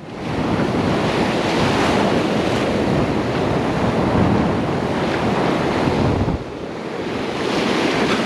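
Ocean surf breaking and washing on a beach, with wind buffeting the microphone. The wash eases about six seconds in and builds again near the end.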